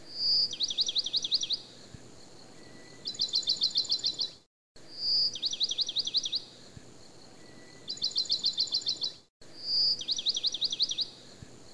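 A bird singing in repeated phrases: a clear whistle followed by a quick run of falling notes, then a faster run of about ten rising notes. The identical sequence repeats about every five seconds, cut off sharply for a moment between repeats, as a looped recording would be.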